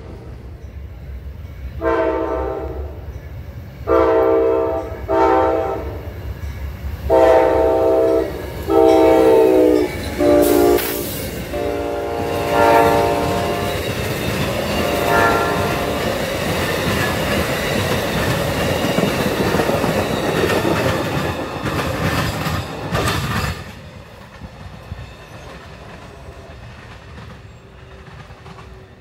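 Amtrak diesel locomotive's air horn sounding a series of long and short blasts as the train approaches, followed by the steady rumble and clatter of passenger cars going by at speed. About 23 seconds in the train noise drops away suddenly, leaving a faint rumble.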